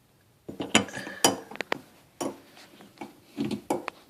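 Sharp metallic clinks and taps of faucet parts being handled as a Delta faucet handle is fitted back onto its stem. The taps are irregular, some with a brief ring, and start about half a second in.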